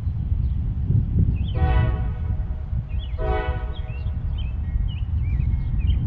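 Locomotive air horn on an approaching freight train sounding two blasts, a short one and then a slightly longer one, over a steady low rumble, with birds chirping throughout.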